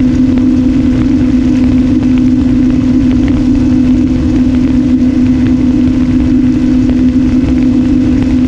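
Electric motor and propeller of an RMRC Strix Strato-Surfer FPV plane running steadily in cruise flight, one unchanging hum, heard through the onboard GoPro with a low rumble of wind on its microphone.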